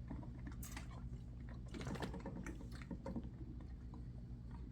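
1946 Singer sewing machine running, freshly oiled after years of disuse: a steady motor hum with irregular light clicks and clatter from the mechanism.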